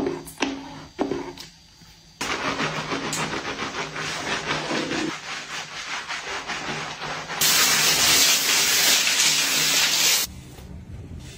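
A pump bottle of body wash is pressed about four times in quick succession onto a mesh bath pouf, each press a short squelching click. Then comes a steady rush of shower water with rubbing as the arm is lathered. About seven seconds in, the spray gets louder and brighter as the lather is rinsed off, and it stops near the end.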